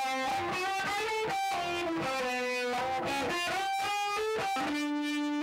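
Electric guitar with distortion playing a slow lead melody of held single notes.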